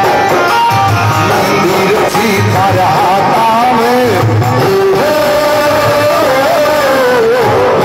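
A man singing a Hindi devotional bhajan into a microphone over music with a recurring drum beat, holding a long wavering note in the second half.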